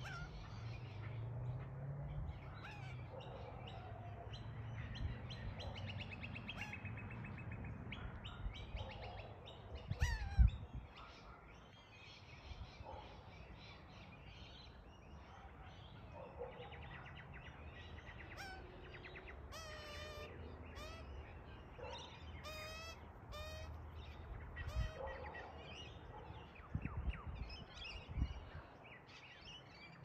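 A young Australian magpie calls over and over in short, wavering calls that sound like cringing, breaking into rapid trills about two-thirds of the way in. A single loud thump comes about ten seconds in.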